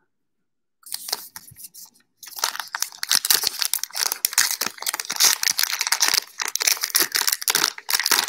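Wrapper of a Topps Heritage baseball card pack crinkling and tearing as it is pulled open by hand, starting about a second in and turning into a dense, continuous crackle from about two seconds in.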